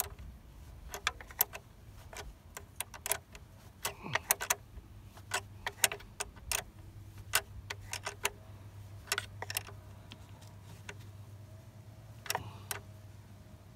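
Ratchet wrench clicking in short, irregular strokes while tightening a car battery terminal nut.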